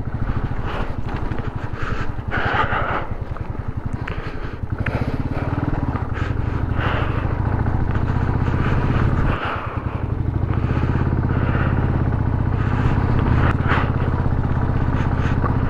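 Royal Enfield Electra's single-cylinder engine running steadily under load on a rough, broken climb, with occasional knocks and rattles from the bumpy road. The engine note briefly drops about nine seconds in, then picks up again.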